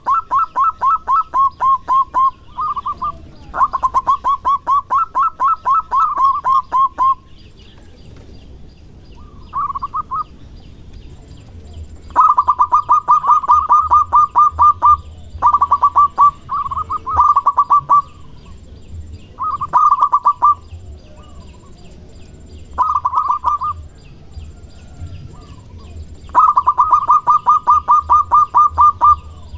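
Zebra dove (perkutut) cooing in its rolling, staccato song: about ten bursts of fast repeated coo notes, each lasting one to three seconds, with short pauses between them.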